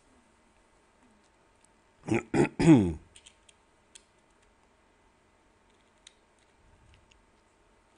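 A brief burst of a person's voice about two seconds in: three quick pulses, the pitch falling, not words. A few faint clicks follow.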